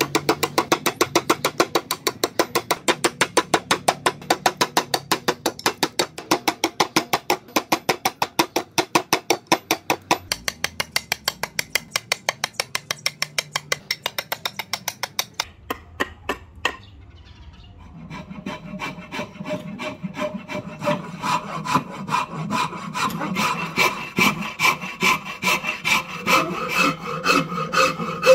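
A hand saw cuts into a rosewood axe-handle blank in quick, even strokes, about four a second, and stops about fifteen seconds in. After a short pause, a steel rasp is drawn along the handle in slower strokes, about two a second, each stroke ringing with a steady pitch.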